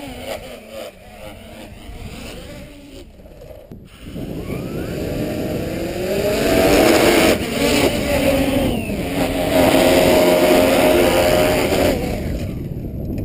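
Tali H500 hexacopter's six electric motors and propellers whining: faint at first, then louder from about four seconds in as it comes down close, several tones together that rise and fall with the throttle, over wind rumble on the microphone. The owner found the motor sound strange and traced it to a weak joint between the upper and lower body shell at the arms.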